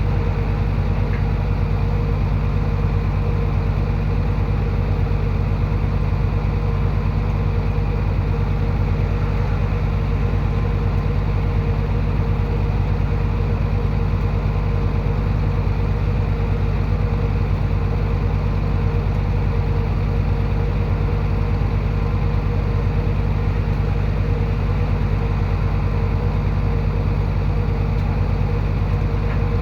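Heavy earthmoving machine's diesel engine running steadily at a constant low rumble, with no revving.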